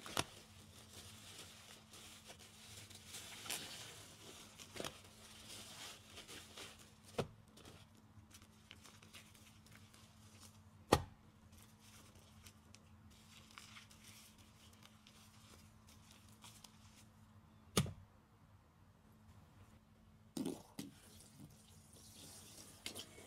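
Soapy car sponge being squeezed: sparse, faint wet clicks and drips, with a few sharper clicks, the loudest about eleven and eighteen seconds in. A faint steady hum lies underneath.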